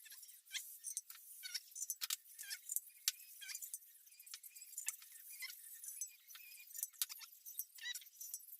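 Irregular light metallic clinks and short squeaky chirps, several a second, from small steel parts and hand tools being worked on a cylinder head during valve-train assembly.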